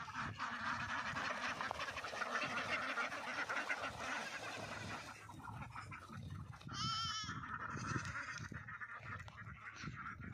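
A flock of domestic ducks quacking together, densest in the first five seconds and thinner after, with one short wavering call from another animal about seven seconds in.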